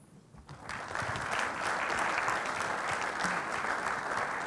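Audience applauding, starting about half a second in and quickly building to steady, dense clapping.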